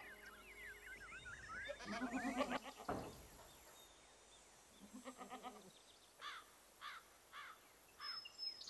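Goats bleating faintly, twice, among birds chirping: a quick run of chirps at the start and short repeated chirps near the end.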